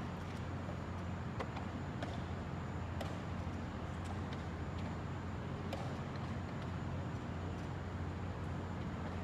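Steady low hum of the room, with a few short sharp clicks of wooden chess pieces set down on the board and the chess clock being pressed during a blitz game.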